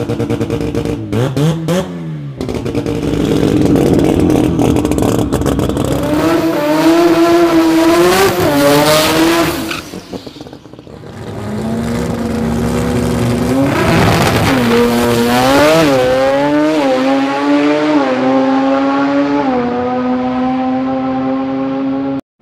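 Rotary-engined drag car running at high revs, its pitch climbing and then dropping back several times in a row as it shifts up through the gears on a pass.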